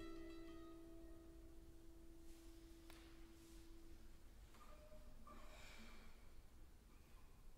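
The last notes of a classical guitar ring on and fade away over about four seconds, then near silence with a soft click about three seconds in and faint rustles.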